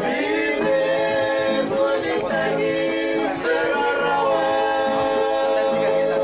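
Male voices singing together in harmony, holding long notes, with an acoustic guitar played along.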